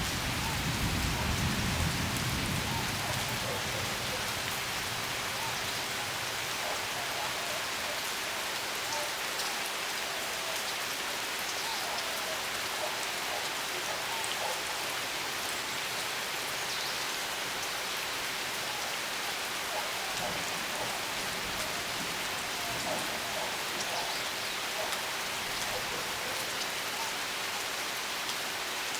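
Steady rain falling and pattering on surfaces, with a low rumble in the first few seconds.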